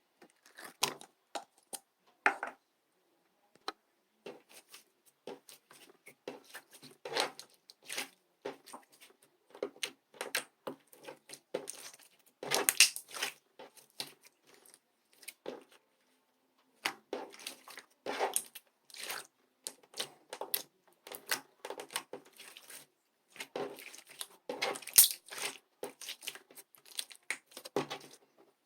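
Close-up handling of crinkly material: irregular tearing and crinkling rustles in short bursts with brief pauses, loudest about thirteen and twenty-five seconds in.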